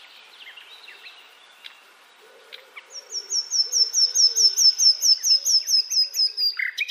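Common nightingale singing. A few soft, scattered notes give way, about three seconds in, to a long rapid run of high repeated notes, about five a second, falling slightly in pitch, ending in a brief louder flourish.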